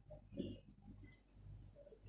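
Faint handling of foil-covered steel tumblers: one brief soft knock about half a second in, then a faint steady high hiss over a low hum.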